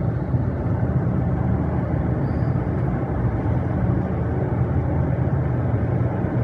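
A steady low engine drone with a constant level throughout.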